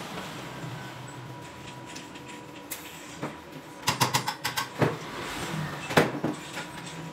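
Hand tools and stainless steel tube parts clinking and knocking on a workbench: a quick run of about six metallic clicks about four seconds in, then two sharper knocks, over a steady low background hum.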